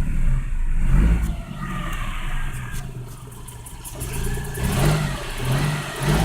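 Geo Metro engine revved several times, its pitch rising and falling with each blip, held short of the red line. The high-mileage engine is knocking, which the owner traces to the number one cylinder.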